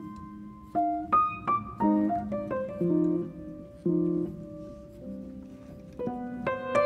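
Solo piano music: chords and single notes struck at an easy pace, each ringing out and fading before the next.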